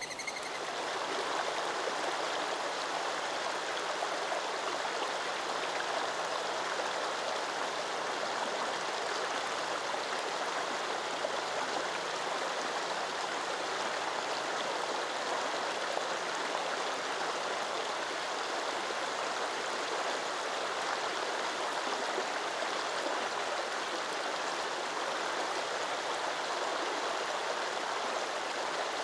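Small woodland brook's water flowing with a steady rushing sound.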